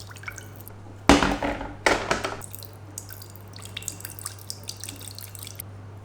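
Water from a tap running in two short gushes, followed by a few seconds of small drips and light clicks, over a steady low hum.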